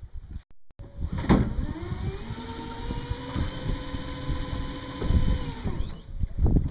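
Electric motor driving a straight propeller shaft for a test run: a clunk as it starts about a second in, then it spins up to a steady whine for about four seconds and stops, with the propeller churning the water.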